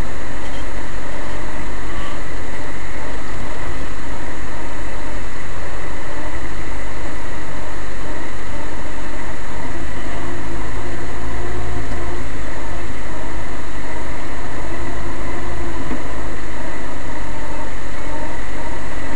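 Off-road 4x4 driving slowly along a rough forest track: its engine running with a steady, loud drone of engine and road noise.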